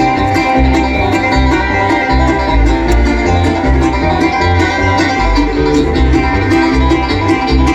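Live bluegrass band playing an instrumental break, banjo and guitar picking over a steady pulsing bass.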